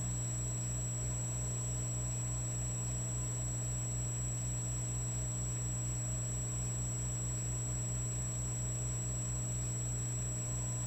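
Electric fireplace log set running with a steady electrical hum and buzz, a faint flutter in the low hum and a thin, high, steady whine above it.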